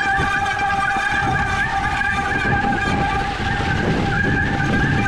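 Mountain bike rolling downhill over a crusty snow-covered trail: a continuous rough rumble and rattle from the tyres and bike over the snow, with a steady high-pitched whine from the bike that wavers slightly.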